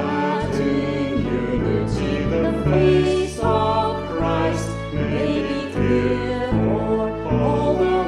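A hymn with voices singing over held chords and a moving bass line.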